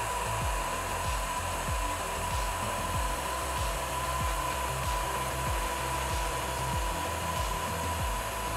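Desktop CNC router spindle milling a 3 mm aluminium plate, with the dust-extraction vacuum running at the cut: a steady high whine over a rushing hiss. Background music with a steady low beat plays underneath.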